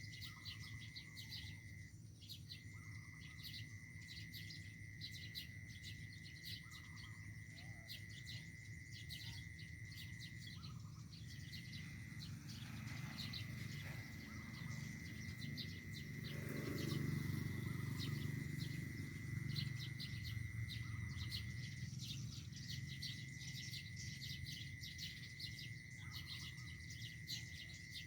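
Small birds chirping in quick, dense runs over a steady high whine that breaks off briefly a few times. A low rumble swells about halfway through and fades again.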